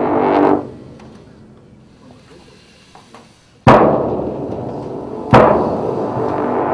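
Marching band playing loud accented hits: a sustained wind chord stops short about half a second in, then after a pause two sharp percussion-and-brass hits land about a second and a half apart, each held as a ringing chord.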